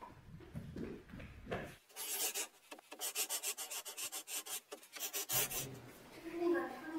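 A scratchy, rasping sound effect under the title card: starting about two seconds in, a fast run of thin, dry scrapes, roughly ten a second, for about three seconds, then it cuts off abruptly.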